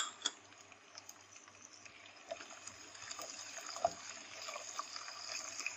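Garlic and ginger frying in hot oil in a pan: a soft sizzle with many small crackles that grows louder and steadier after about two seconds. A sharp click at the very start.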